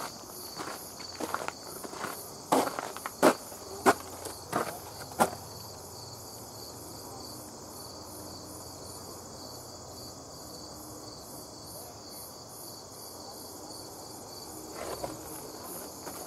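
Footsteps on a paved path for about the first five seconds, stopping for about ten seconds and starting again near the end. Under them, a steady chorus of insects chirping in an even pulse.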